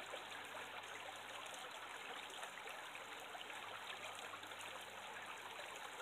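Faint, steady trickle of shallow creek water running over a sandy, muddy bed.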